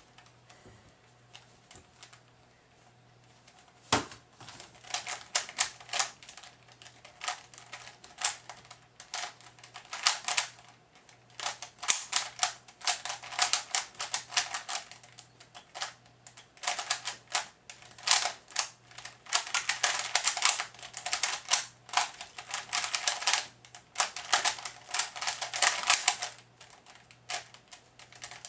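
Type A 3x3 speedcube being turned fast in a timed solve: rapid runs of plastic clicks and clacks from the layers turning, in bursts with short pauses between them. The first few seconds are nearly quiet, then a single sharp click about four seconds in as the solve starts.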